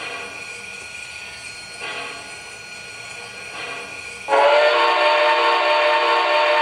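Proto-Sound 3.0 sound system of an MTH O gauge Southern Pacific cab forward steam locomotive model: soft hisses about every two seconds from the standing engine, then about four seconds in a loud steam whistle blast of several tones sounded together and held.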